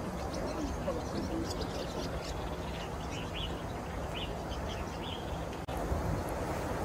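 Small birds chirping in short, high notes again and again, over a steady low background rumble. The sound breaks off for an instant about five and a half seconds in.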